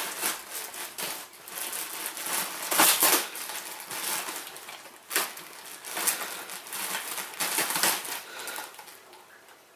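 Plastic wrapping of a toilet-roll multipack crinkling and tearing as it is ripped open, in repeated bursts, loudest about three seconds in and dying down near the end.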